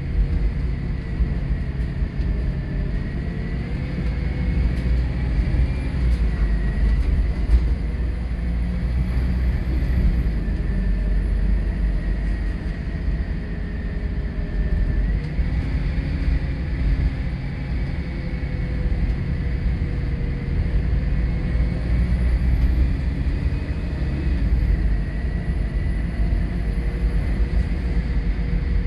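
Bus running on the road, heard from inside the passenger saloon: a steady low rumble with a faint whine that rises and falls in pitch several times as it speeds up and slows.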